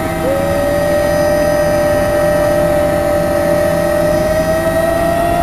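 Bell 206 helicopter in flight, heard from inside the cabin: steady, loud turbine and rotor noise under a strong whining tone. The whine dips briefly just after the start, then holds and creeps up in pitch near the end.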